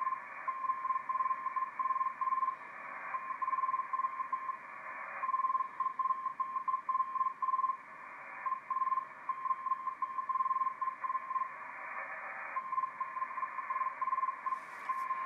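Morse code (CW) from an amateur radio station, heard as one steady beep keyed on and off at about 20 words per minute through an Icom IC-7300 receiver, over a constant hiss of band noise that swells in the pauses between words. A brief crackle near the end.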